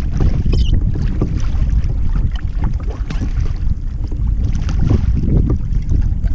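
Wind buffeting the microphone in a heavy low rumble, with choppy water lapping against a kayak's hull in short uneven splashes.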